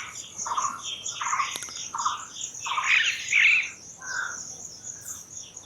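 Birds calling: one repeats a short mid-pitched call about every 0.7 s, with a brief flurry of higher, louder chirps about three seconds in. Underneath runs a fast, steady high-pitched pulsing chirr.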